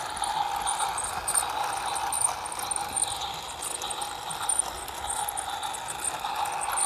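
Toy steam train set running on its plastic track: a steady small-motor whir with a fast run of light clicks from the wheels and gearing.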